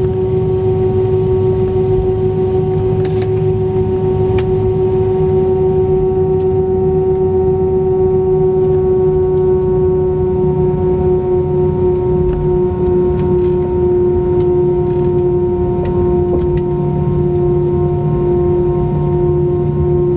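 Airbus A319's jet engines at idle thrust, heard inside the cabin: a steady whine over a deep rumble while the airliner taxis and turns on the runway before the take-off roll.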